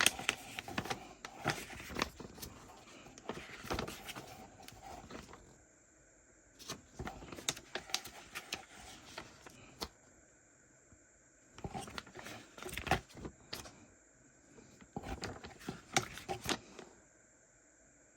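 Handling noise of small fishing-tackle items and their plastic packaging: scattered clicks, taps and rustling in short clusters, with brief silent gaps between them.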